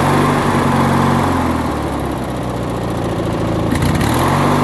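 Briggs & Stratton opposed-twin engine of a White LT 1650 lawn tractor running steadily, dipping briefly in speed near the end. The owner says it is running pretty good but needs new spark plugs.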